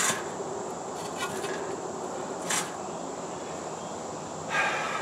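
Concrete blocks being set down and shifted into place: a short knock at the start, another about halfway through, and a longer scrape near the end. Behind them, a steady high buzz of insects.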